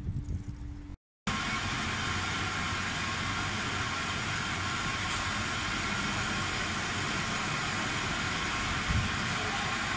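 Steady hum and hiss of running processing machinery in a dairy plant's stainless-steel hall, with faint steady tones in it. It comes in after a brief cut-out about a second in.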